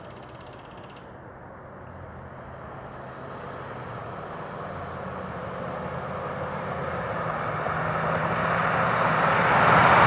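Helicopter approaching overhead, its engine and rotor noise growing steadily louder.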